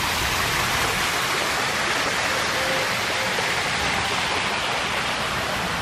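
Water falling in a steady curtain from a mushroom-shaped splash fountain into a shallow children's pool.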